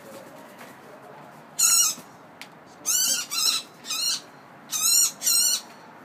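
A trapped bird giving short, loud, harsh distress calls: six in all, the first about one and a half seconds in, then the rest in quick pairs.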